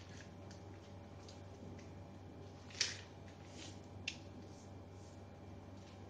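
Brown pattern paper being folded and creased by hand: faint rustling, with a short sharp crinkle about three seconds in and a smaller one about a second later.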